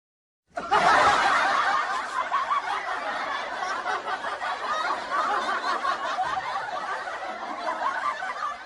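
Many people laughing together in a dense, continuous mass, cutting in abruptly about half a second in and loudest at the start.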